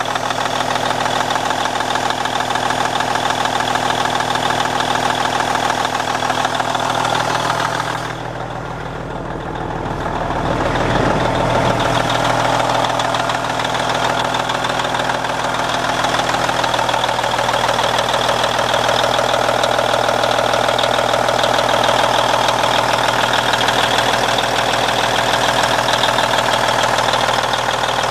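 1999 Peterbilt 379's diesel engine idling steadily, heard close up at the open engine bay. The sound dips briefly about eight seconds in.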